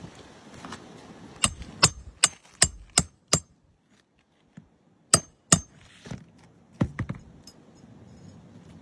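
Hammer blows with a metallic ring: a quick run of six strikes, then two more and a few softer knocks.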